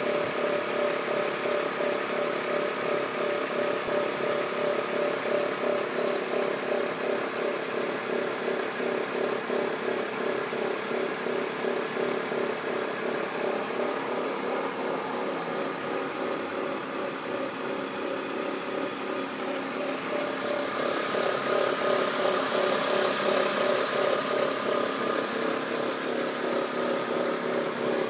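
BMW E46 323Ci's straight-six engine idling steadily, carrying a noise whose origin the owner cannot place. It grows louder for a few seconds about twenty seconds in.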